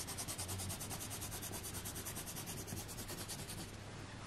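Coloured pencil scribbling fast back and forth on paper, shading in an area: rapid, even rubbing strokes, about ten a second, that fade out near the end, followed by a single short knock.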